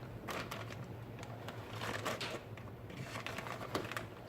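Irregular light clicks, taps and short scrapes of kitchen utensils and containers being handled.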